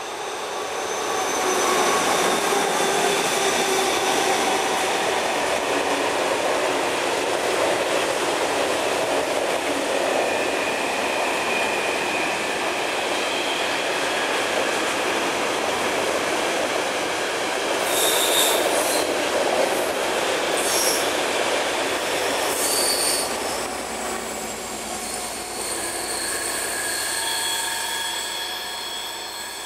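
A freight train hauled by ČD Cargo class 753 diesel-electric locomotives passes on an uphill grade, engines working under load, then a long rake of wagons rolls by. High wheel squeal comes from the wagons in the second half. The sound drops off near the end as the last wagons leave.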